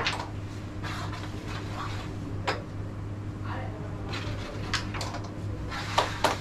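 A carrom striker shot: a sharp click as the striker hits the wooden carrom men, with a smaller click about two and a half seconds in, over low voices. Near the end the onlookers break into quick clapping.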